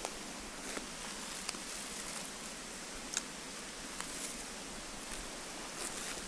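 Steady murmur of a mountain river flowing over stones, with a few faint light ticks on top.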